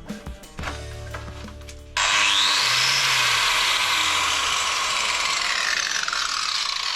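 Angle grinder, its cut power cable just repaired, switched on about two seconds in and running loudly, with a hiss and a whine that climbs quickly, then slowly falls.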